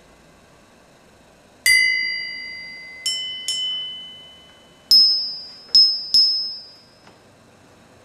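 Three small bell-bronze bells (80% copper, 20% tin) struck in turn with a thin metal rod: once on the lowest-pitched bell, twice on a higher one, then three times on the highest. Each strike is a clear ring that fades within about a second.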